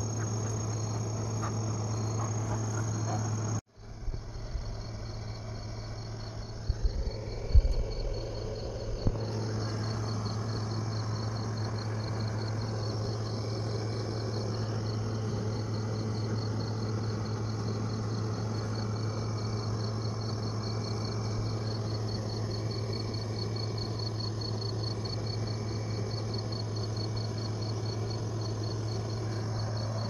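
Crickets chirping in a steady, fast-pulsed high trill over a steady low hum, with a few bumps about seven seconds in.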